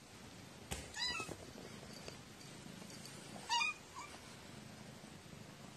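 Domestic cat meowing twice: a short meow about a second in and a louder one at about three and a half seconds, followed by a brief extra note. A sharp click comes just before the first meow.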